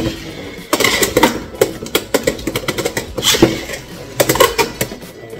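Beyblade X spinning tops clattering in a plastic stadium: a rapid, irregular run of sharp clicks and knocks as they hit each other and the stadium walls.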